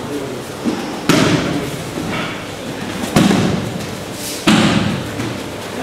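Children landing on aikido mats during rolls and breakfalls: a light thud, then three loud thuds about a second and a half apart, each fading out in the hall.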